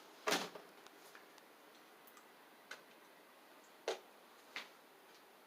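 Slime giving small sharp pops and clicks as it is stretched out to blow a bubble: four quick pops, the first the loudest.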